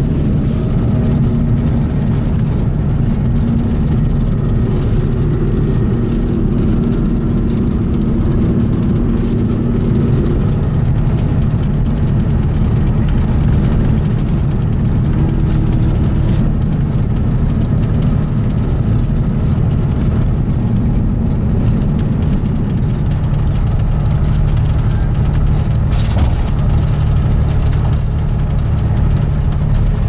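MCI D4500CT motorcoach cruising at highway speed, heard from inside the passenger cabin: a steady low engine drone mixed with road noise.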